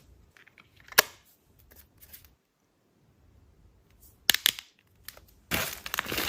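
Packaging handled during an unboxing: a few sharp clicks and taps, the loudest about a second in and a pair a little after four seconds, then dense crinkling of plastic or paper wrapping starting about a second before the end.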